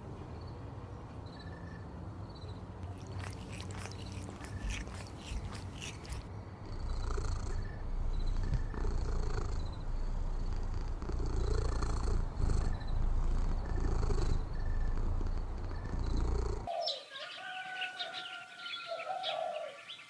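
Domestic cat purring close to the microphone: a steady low rumble with a pulsing beat, growing louder about a third of the way in, with a patter of clicks a few seconds in. Near the end it cuts abruptly to birds chirping.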